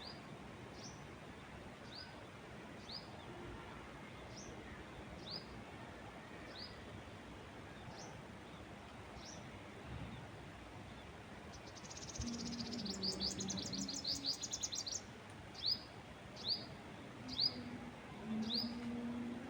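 Wild songbird chirping, repeating one short high chirp about every second and a bit over a faint steady rush of wind. A louder rapid run of chirps comes a little past halfway.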